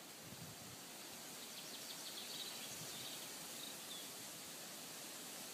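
Faint, steady hiss of wind through woodland, with a small bird giving a quick run of high chirps for a couple of seconds in the middle.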